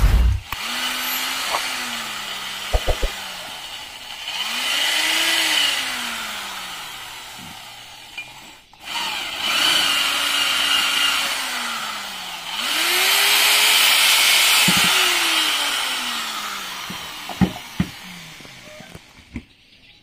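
Corded electric drill running in four runs of a few seconds, its motor whine rising and falling in pitch as the trigger is eased in and out, with a hiss of the bit working against metal. A few sharp metal clicks fall between runs.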